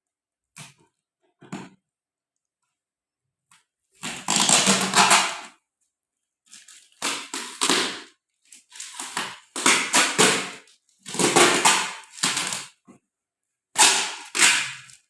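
Parcel packaging being ripped open by hand: a couple of light clicks, then about six separate tearing rips, each about a second long.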